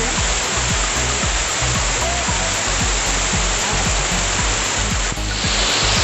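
Waterfall: water pouring over rocks in a loud, steady rush. After a brief dip about five seconds in, the rush sounds closer and brighter.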